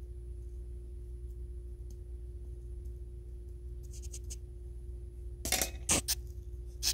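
A steady low hum, then a few short rubbing scrapes near the end as fingers work close to the microphone, pressing a small plastic ring down into the soil around a seedling.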